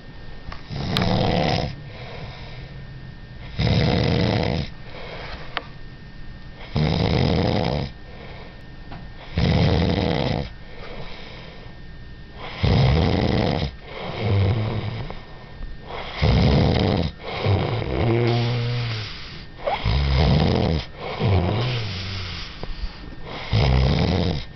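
Loud snoring, with a long snore about every three seconds and quieter breaths in between. Around the middle some of the snores take on a buzzing, pitched rattle.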